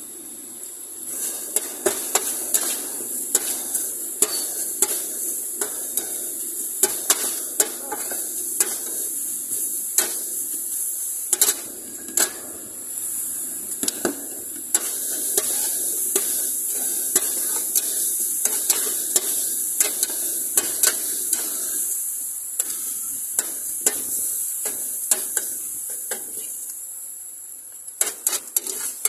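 Metal spatula scraping and clanking against a large shallow steel frying pan as noodles and vegetables are stir-fried, over a steady sizzle. The clanks come irregularly, several a second at times, with a quick cluster near the end.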